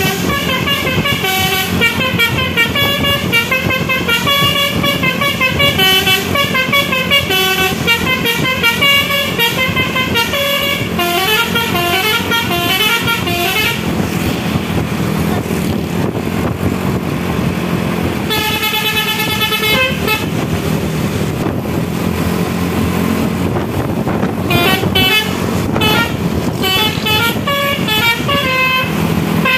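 A bus's Basuri multi-tone musical air horn ('telolet') plays a stepping tune for the first half, then a short burst, then again over the last few seconds. Under it runs the steady noise of the bus engine and road.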